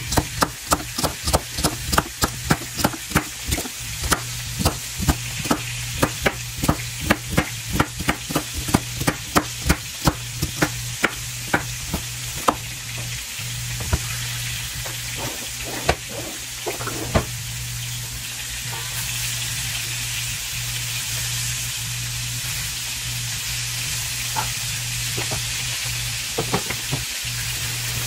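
Chef's knife chopping celery on a wooden cutting board, quick even strokes about three a second, slowing and stopping about two-thirds of the way through. Under it, short ribs sizzling as they sear in a pan, the sizzle a little louder once the chopping stops.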